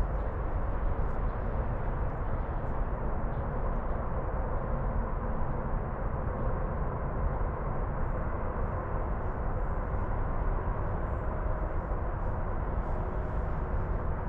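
Steady low rumbling noise of wind buffeting the microphone outdoors, with no distinct events.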